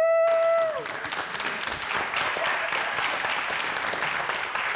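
The last held note of a voice imitating a rooster's cock-a-doodle-doo, falling off just under a second in. A studio audience then applauds steadily.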